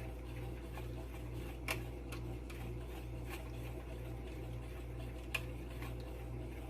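Fork tapping and scraping against the side of a bowl while beating raw eggs, a steady run of light ticks with two sharper clinks, over a steady low hum.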